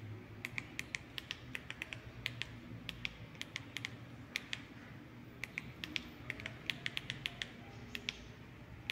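TV remote control buttons clicking in quick, uneven runs of several presses a second, the arrow and select keys stepping through letters on an on-screen keyboard.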